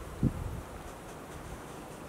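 Wind buffeting the microphone over the steady rush of a shallow river rippling over stones, with one short gust about a quarter second in.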